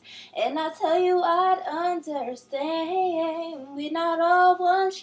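A young woman singing solo and unaccompanied, holding long notes and sliding between pitches.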